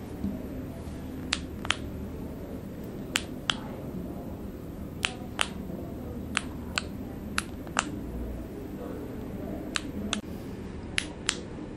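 Switch of an Ultrafire CREE Q5 LED flashlight clicking, the light switched on and off. The clicks come in pairs a fraction of a second apart, seven pairs in all.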